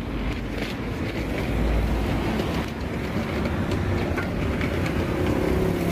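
Steady low rumble of city street traffic, with a low engine hum coming in near the end.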